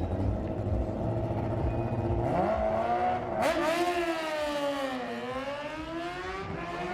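Car engine accelerating hard, its pitch climbing from about two seconds in. It gets louder with a sudden surge at about three and a half seconds, then the pitch falls and climbs again.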